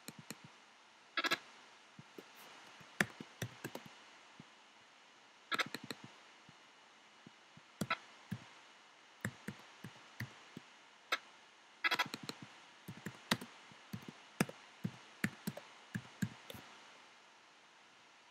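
Computer keyboard being typed on: irregular single key clicks and short quick runs of keystrokes, with pauses between them.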